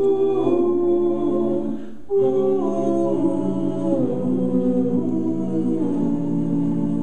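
Five-voice a cappella ensemble singing sustained close-harmony chords without clear words, with a short break about two seconds in before the chords resume and shift.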